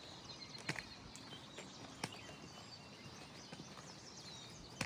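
Quiet outdoor ambience with a few soft, sharp taps spread through it and a faint, short, high chirp near the end.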